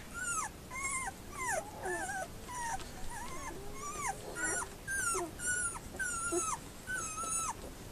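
Eight-day-old puppies squeaking and whimpering: a steady run of short, high, falling squeaks, about two a second.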